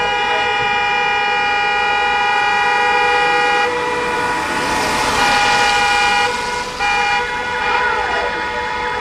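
Several car horns honking together in long held blasts, breaking off about four seconds in and then sounding again in shorter blasts.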